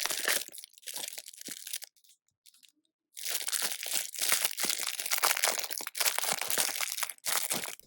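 Box holding a squishy toy being opened and its packaging handled: about two seconds of rustling and tearing, a second's pause, then a longer stretch of dense rustling.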